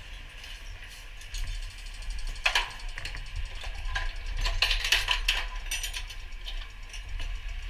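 Steady low hum of running machinery, with sharp clicks and metallic rattles of equipment being handled: one about two and a half seconds in, and a cluster from about four to five seconds in.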